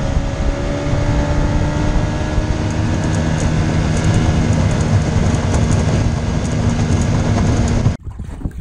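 Tiller outboard motor running steadily at speed, heard from aboard the moving aluminum johnboat with the rush of wind and water around the hull. It cuts off suddenly near the end.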